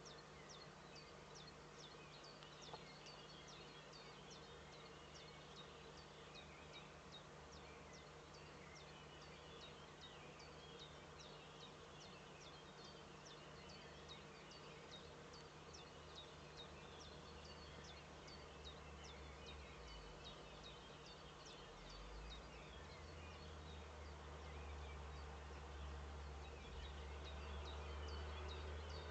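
Faint, thin high-pitched chirps from a small bird, each a quick downward sweep, repeated about twice a second, over a steady low electrical hum. A low rumble grows in the last few seconds.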